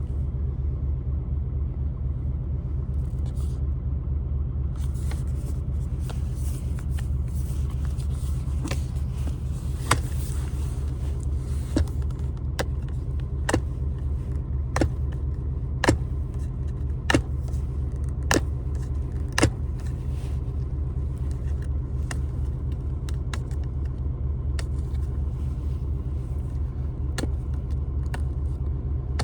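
Packaging of a boxed bike lock being handled and picked at, giving irregular sharp clicks and crackles from about six seconds in. A steady low rumble runs underneath throughout.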